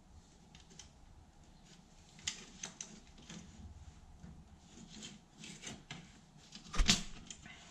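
Handling noise: light clicks and rubs as the opened plastic handle of an electric flyswatter and its wired circuit board are worked by hand, with one sharper knock near the end.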